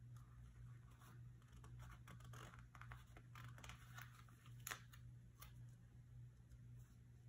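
Faint paper handling: a sticker peeled off a sticker-book sheet and pressed onto a paper planner page, with light rustles and small ticks, one sharper tick just before the middle. A steady low hum runs underneath.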